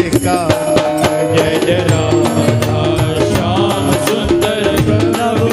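Devotional kirtan music with a hand drum keeping a steady rhythm under sustained melody lines.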